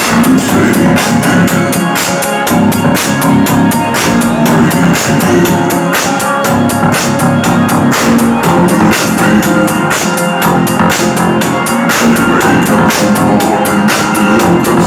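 Loud electronic dance music played over a club sound system, with a steady, driving beat.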